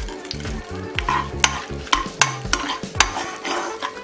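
Whole spices sizzling in foaming melted butter in a hot kadai. A steel slotted spoon stirs them, making sharp, irregular clicks and scrapes against the pan.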